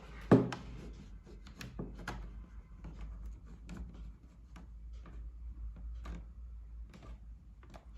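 A sharp knock, then scattered light clicks and rubbing as a laptop charger cable is handled and plugged in.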